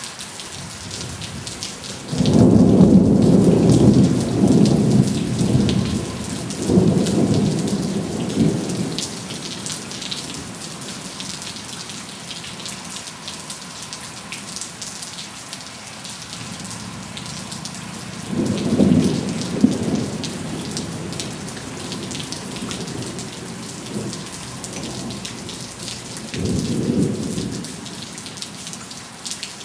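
Thunder rumbling over steady heavy rain: a loud peal about two seconds in that rolls on for several seconds with a second surge, then shorter rumbles past the middle and near the end.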